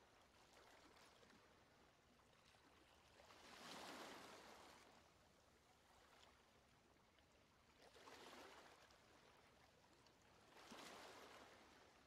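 Faint wash of small sea waves on a stony shore, swelling and fading three times.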